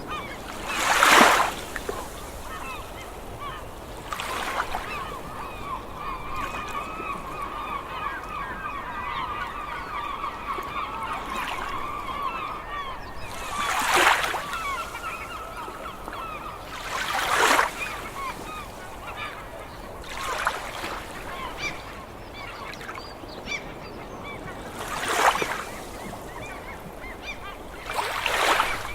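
A large flock of seagulls calling continuously, with many overlapping short cries. About five loud one-second rushes of noise, like waves or gusts, cut across the calls, the loudest about a second in.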